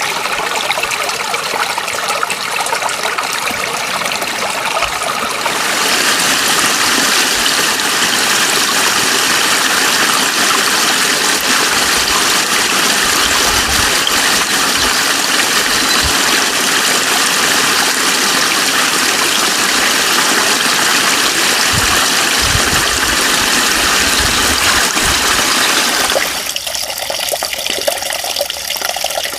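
Steady rush of running water, growing abruptly louder and fuller about six seconds in and dropping back to a thinner, trickling sound near the end. Some low thumps come and go in the middle.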